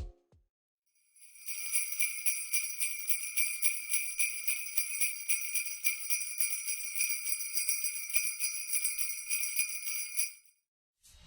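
Sleigh bells shaking in a fast, even rhythm, a bright high-pitched jingling that starts about a second in and stops abruptly shortly before the end.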